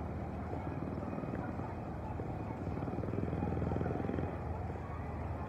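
Wind buffeting the microphone outdoors: a steady low rumble that swells a little about three seconds in.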